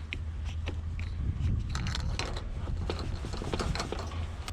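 Irregular crunchy clicks and scrapes of hard plastic and metal parts being worked apart by hand, busiest around the middle, over a steady low rumble.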